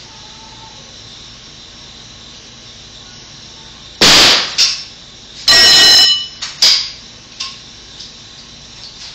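Loud bangs and knocks from fastening the bottom plate of a wood-stud wall at the floor. A sharp bang comes about four seconds in, then a short knock and a longer, very loud bang with a ringing tail, then a few smaller knocks.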